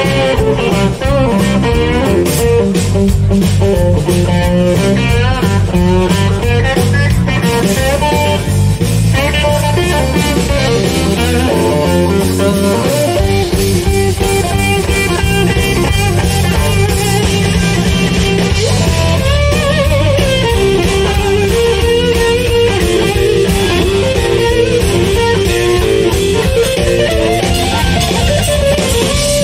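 Live blues band playing an instrumental passage: electric guitar over bass guitar and drums, with no vocals, at a steady beat.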